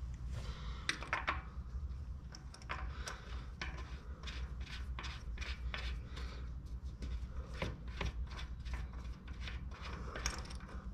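Oil-fill cap and dipstick being twisted and pulled out of a new, still-dry Generac portable generator's engine: a string of small irregular clicks and rubbing.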